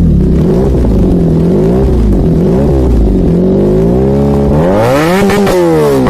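A 300cc-class sport motorcycle engine revved through its exhaust in repeated throttle blips, the pitch rising and falling. About three-quarters of the way in, the revs climb higher in several quick, sharp peaks.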